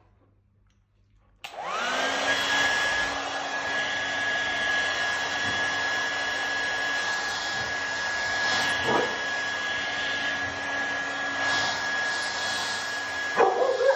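Handheld hair dryer switched on about a second and a half in: its motor whine rises quickly to a steady pitch over the rush of blown air, then runs steadily.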